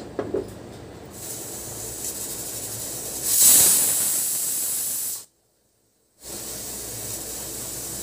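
Pressure cooker on a gas burner hissing steadily as steam escapes at the weight valve. About three seconds in it blows a loud whistle of venting steam lasting about two seconds, the sign that it has come up to full pressure. The sound cuts off suddenly for about a second, then the steady hiss returns.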